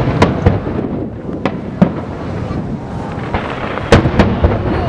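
Aerial fireworks bursting overhead: a run of sharp bangs and reports, loudest at the very start and again about four seconds in, with a rumble of echo between them.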